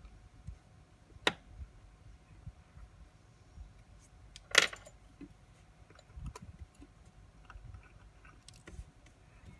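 Small metal clicks and clinks of watchmaker's tools against watch parts, with a sharp click about a second in and a louder metallic clink that rings briefly near the middle.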